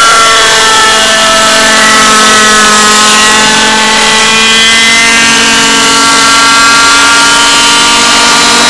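Thunder Tiger Raptor model helicopter's .30 two-stroke glow engine running at flying speed, a loud steady buzz whose pitch shifts slightly up and down as the helicopter flies.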